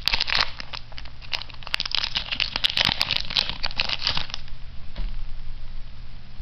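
Foil wrapper of a Weiss Schwarz booster pack crinkling and crackling as it is opened and crumpled by hand. The crackling dies down about four and a half seconds in.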